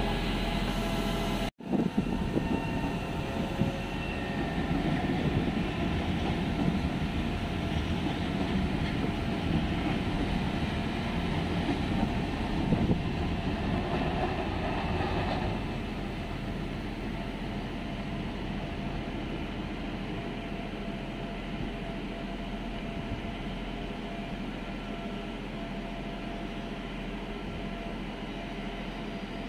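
Trenitalia 'Jazz' electric multiple-unit train running through the station: a steady rumble of wheels and traction equipment with a faint steady hum, easing off after about sixteen seconds.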